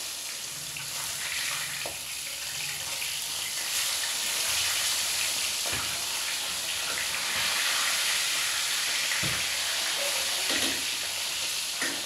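Food sizzling steadily in a pan on a gas stove, with a few knocks of a utensil against the pan.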